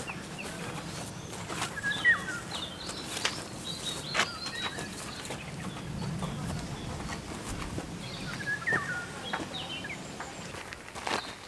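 Small birds chirping in short, repeated phrases, twice a similar call. A few sharp knocks and clicks come from work nearby.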